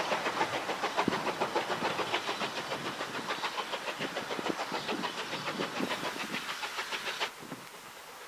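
Steam train heading away, its quick, even beat of about four or five a second slowly fading. The sound cuts off suddenly about seven seconds in, leaving a quieter windy background.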